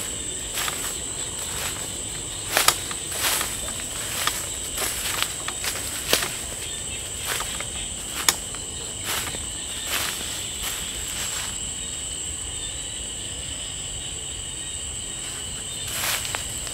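Night insects trilling steadily in a high continuous tone, with a second, lower trill beneath it. Footsteps crunch through dry leaf litter and twigs at irregular intervals, stop for a few seconds about two-thirds of the way through, and start again near the end.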